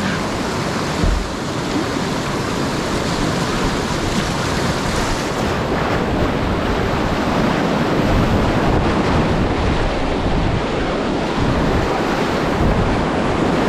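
Whitewater rapids rushing loudly and steadily, with wind rumbling on the microphone and a short low thump about a second in.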